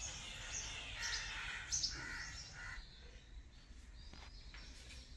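Small birds chirping over outdoor background noise; about three seconds in this gives way to quieter room tone with a few faint clicks.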